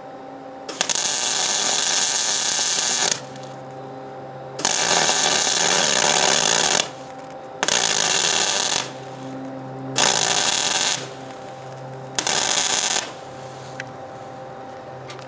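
Welder laying short beads onto the stub of a broken exhaust manifold bolt in an LS cylinder head, to build it up for extraction. It comes in five loud bursts of hiss, each one to two seconds long, with a steady low hum in the gaps.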